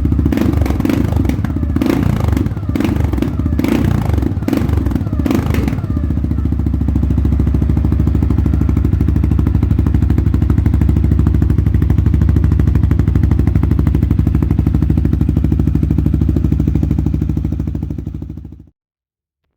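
CFMoto CForce 625 ATV's single-cylinder engine revved in several quick throttle blips, then settling to a steady idle before being switched off, cutting out abruptly near the end.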